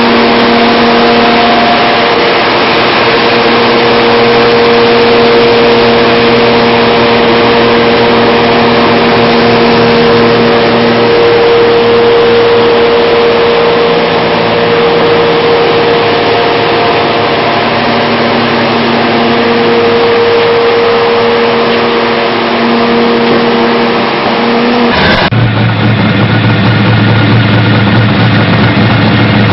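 Dodge Challenger HEMI V8 running loud and held at a steady raised speed, its pitch shifting a few times. About 25 seconds in it cuts to a deeper, low-speed rumble as the car rolls along the road.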